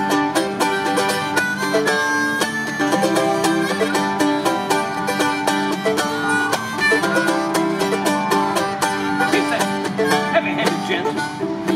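Acoustic folk instrumental: a mandolin picked in quick, even strokes while a harmonica plays held melody notes over it.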